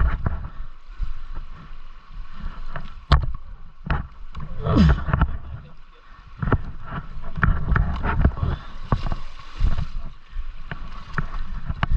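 Water splashing and gurgling as a dirt bike wades through a river, with irregular knocks and wind on the microphone.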